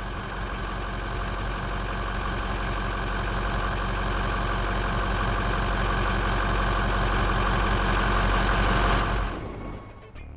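2005 Ford F-250's 6.0L Power Stroke V8 turbo-diesel running steadily and getting gradually louder, then dropping away sharply near the end. The engine is running again after a no-start caused by a failed high-pressure oil pump.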